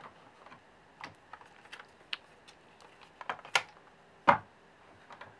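Light plastic clicks and knocks as a toy Triceratops figure is shifted about on a plastic toy truck's trailer bed and cage. It is an irregular scatter of taps, with the loudest knock about four seconds in.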